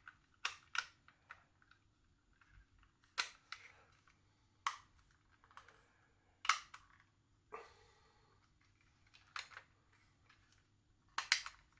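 Plastic parts of a Transformers Studio Series 86 Grimlock toy being turned and snapped into place: about a dozen short, sharp clicks at irregular intervals, with quiet between them.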